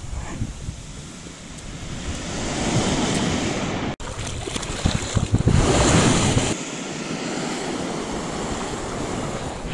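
Small surf washing up the sand, with wind buffeting the microphone. The sound swells twice, cuts out for an instant about four seconds in, and the louder second swell stops abruptly, leaving a steadier wash.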